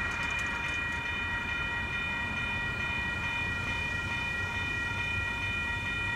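Union Pacific freight locomotive's horn sounding one long steady blast as the train nears the grade crossing, over a low rumble.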